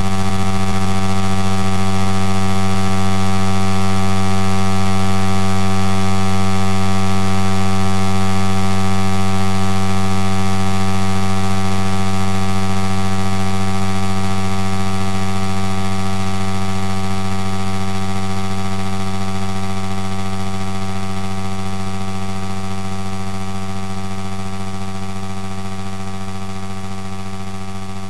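Audio-edited recording of a magnetic-resistance exercise bike, processed into a steady droning hum with many overtones over a hiss. It slowly fades over the second half.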